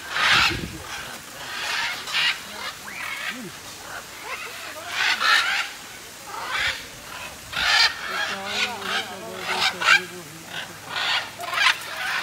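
A flock of macaws, red-and-green and blue-and-yellow, squawking: a dense series of short, rough calls, one or two a second, overlapping one another.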